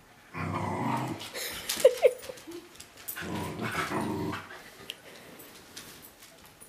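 Small dogs play-growling while wrestling: two long growling bouts with a couple of short, sharp yips between them, then light scuffling and clicks.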